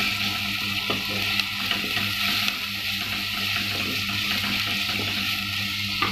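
Sliced onion sizzling steadily as it fries in hot oil and ghee, stirred with a wooden spatula that gives a few light scrapes and knocks against the pot.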